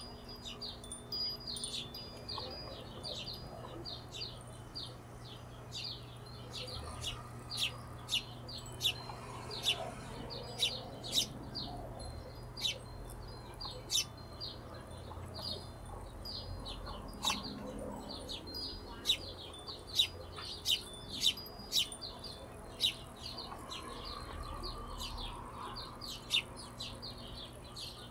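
Hummingbirds calling: a rapid, irregular series of sharp, high chip notes mixed with thin squeaky twitters.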